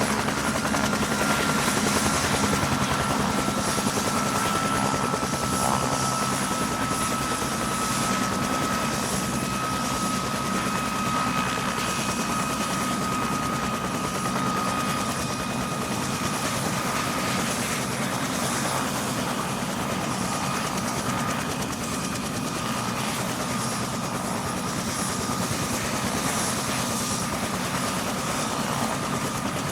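Ambulance helicopter running steadily, with rotor noise and a high turbine whine that drifts slowly down in pitch.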